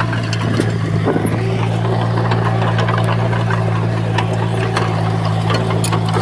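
Diesel engine of heavy construction machinery running steadily, with scattered sharp clanks and clicks over the drone.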